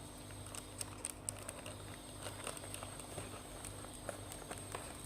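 Faint scattered clicks and light rustles of trading cards and their cardboard packaging being handled, over a steady low electrical hum, with one sharp knock right at the end.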